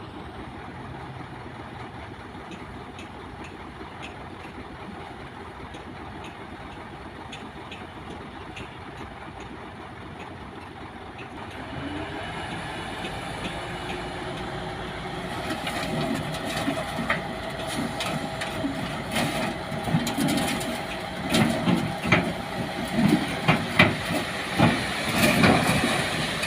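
Heavy diesel construction machinery running steadily. About halfway through it grows louder, with a steady engine tone and then repeated metallic clanks and knocks that build toward the end.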